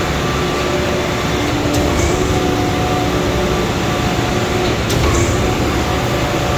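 Truck-mounted concrete pump running under load: a loud, steady engine-and-hydraulic drone with a steady hum. A faint knock comes about every three seconds as the pump cycles its cylinders.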